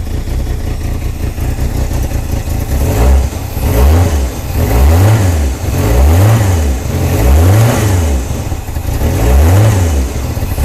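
Carbureted V8 with a Holley four-barrel carburetor running in a 1984 Corvette, revved by hand at the carburetor throttle. It idles at first, then from about three seconds in it is blipped up and back down over and over, roughly once a second. It now keeps running because the electric fuel pump stays powered after the prime, following a wiring repair at the oil pressure sensor.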